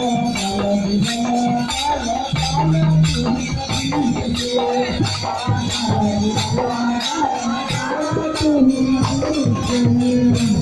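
Live folk Holi music: a harmonium sustaining notes over a steady rhythm of bright jingling hand percussion.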